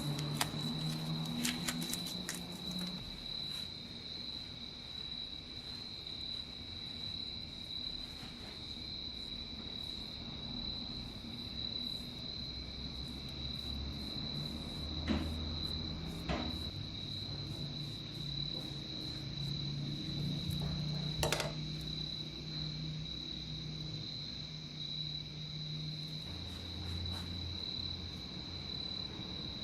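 Steady high-pitched insect trill, like a cricket's, unbroken throughout, with a few sharp clicks now and then, the loudest about two-thirds of the way in.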